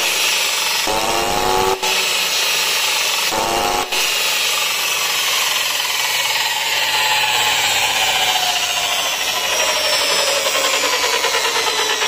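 Makita LW1401 cut-off saw's electric motor running loudly at speed. Its whine rises twice in the first few seconds, with two brief dips, then slowly falls in pitch.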